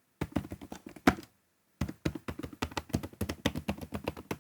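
Typing on a Moeetech GLITTER65 HE Hall Effect keyboard fitted with ultra-silent switches: fast, dense key presses. A short burst comes first, then a brief pause, then continuous typing from about two seconds in.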